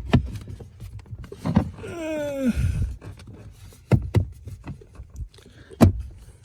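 Knocks and clicks of a replacement HVAC blower motor being pushed and wiggled into its plastic housing, several sharp hits with the loudest near the end. About two seconds in there is a brief falling tone.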